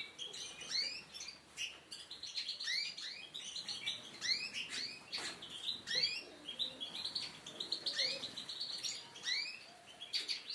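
Several songbirds chirping together: many short upward-sweeping calls, several a second, overlapping with a high trill.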